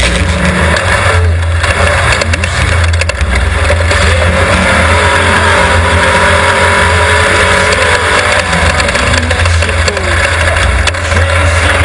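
Class 1200 desert off-road race car's engine running at speed, a loud steady drone with tyre and wind noise over it.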